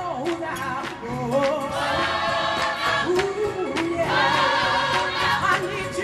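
Gospel choir singing over instrumental accompaniment, with sharp percussive hits recurring throughout.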